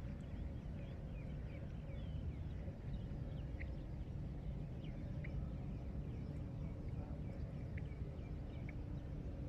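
Small birds chirping in short, scattered calls over a steady low outdoor rumble.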